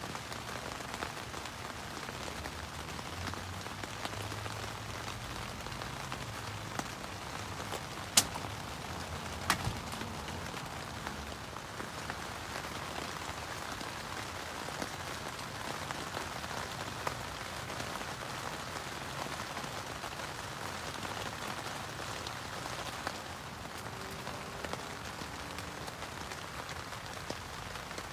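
Steady rain falling on the tent, a dense even hiss of fine drop-ticks. Two sharp clicks stand out, about eight and nine and a half seconds in.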